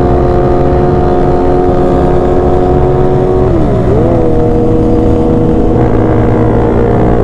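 Kawasaki ZX-6R 636 inline-four sport bike engine running steadily at road speed, with wind rush. About three and a half seconds in the revs dip briefly and pick up again, then hold a little lower.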